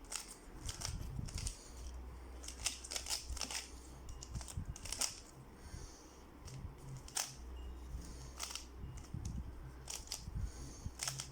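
Rubik's Cube being turned by hand, layer after layer: a string of short plastic clicks and clacks at an irregular pace as an algorithm is worked through.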